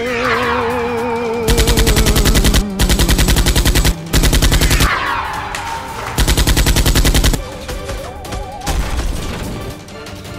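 Four bursts of rapid automatic gunfire, about ten shots a second and about a second each, over background music, with a falling whistling sweep at the start and another about four seconds in.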